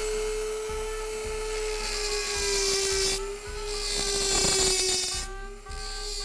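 Rotary tool's high-speed bit grinding into antler to cut out a carving's overall shape: a steady motor whine whose pitch sags a little under load, with a hissing grind that swells twice, about two and four seconds in.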